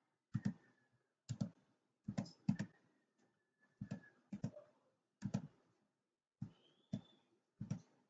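Computer mouse button clicks, about ten of them at roughly one a second and unevenly spaced. Many are a quick double tick of press and release as dropdown options are picked.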